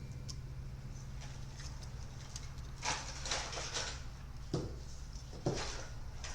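Light handling noises on a workbench: a few brief rustles about three seconds in, then two short knocks about a second apart, over a steady low electrical hum.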